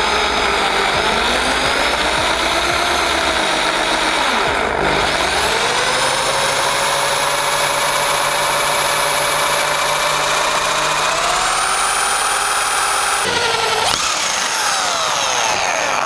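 Electric drill with a 3.5 mm twist bit boring through the scooter's metal handlebar tube, its motor whining steadily under load. The pitch dips briefly about five seconds in and climbs back, then the motor winds down near the end as the bit breaks through.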